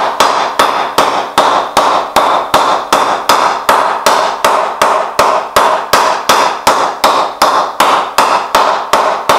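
Wooden mallet tapping the face of a grade one willow cricket bat in a ping test: a steady series of sharp knocks, about two and a half a second, each with a short ring. The maker judges the bat very powerful right from the top end of the hitting zone.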